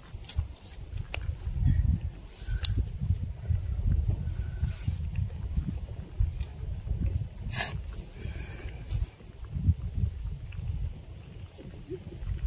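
Wind buffeting the microphone in uneven gusts, over a steady high insect trill. A few sharp clicks stand out, about three seconds in and about eight seconds in.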